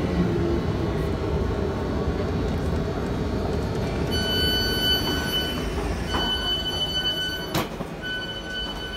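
Train rumble, then from about four seconds in a train door warning sounding as long steady beeps of about a second and a half each, three in a row with short gaps. A single sharp knock falls between the second and third beeps.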